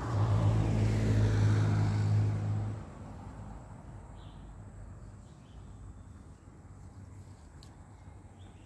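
A motor vehicle's engine hums steadily as it goes by, loudest for the first three seconds and then dropping away suddenly, leaving quiet outdoor ambience with a few faint bird chirps.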